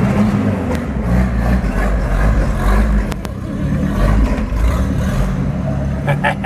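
Chevrolet Opala engine revved repeatedly through an open exhaust cutout, a loud deep rumble that rises and falls about once a second, with a couple of sharp pops about three seconds in.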